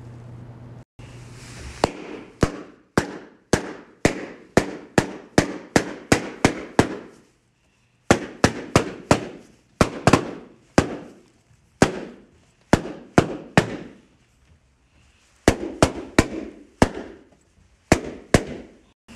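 Latex balloons popping one after another, about two sharp pops a second, in three quick runs separated by short pauses.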